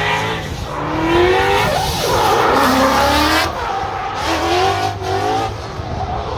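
Drift car sliding sideways with its tyres squealing and smoking, the engine revving up and down in pitch throughout.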